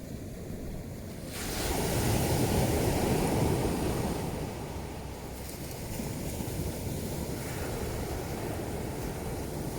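A sea wave breaking on a pebble beach: a sudden crash about a second in, loudest for a couple of seconds, then fading into a long hissing wash over the stones with steady surf behind.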